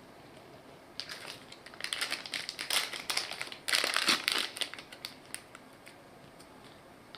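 Packaging crinkling and crackling as it is handled and pulled about during unboxing, in a busy burst lasting a few seconds.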